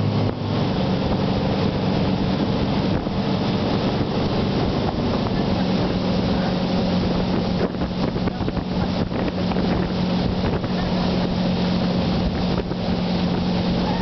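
Motorboat engine running steadily at towing speed, with a steady hum over the rush of the churning wake and wind on the microphone.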